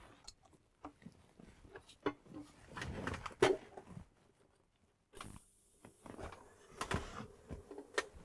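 Handling noises of a small ozone generator being set down on a leather car seat: soft knocks, rustles and clicks as its knob is turned, the loudest knock about three and a half seconds in. A faint steady high hiss sets in about five seconds in.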